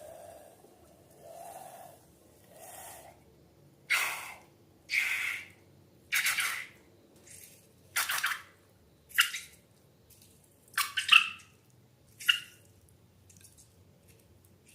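Wet slime sounds: a run of separate squelches and plops, about one a second, some with a quick falling gurgle. The loudest comes near the end.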